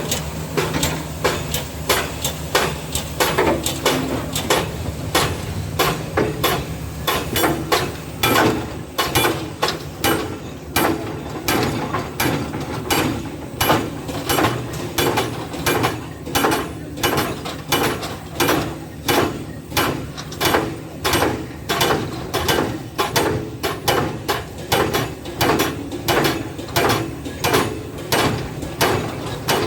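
Steady, evenly spaced knocking, about two sharp strikes a second over a low steady hum.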